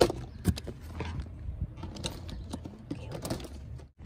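Handling noise: a run of irregular clicks and knocks from goods and packaging being moved about in a car trunk, the loudest click right at the start. The sound cuts out briefly just before the end.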